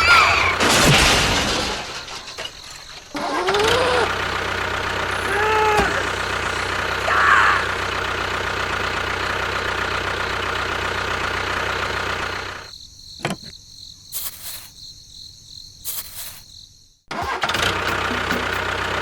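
A small motor running steadily with an even hum, with a few short sliding squeaks over it. The hum cuts off abruptly partway through, leaving a few clicks, and starts again near the end.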